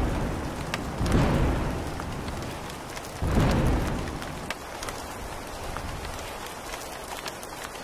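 Steady rain hiss with two rolls of thunder, one about a second in and one about three seconds in, each swelling and fading away.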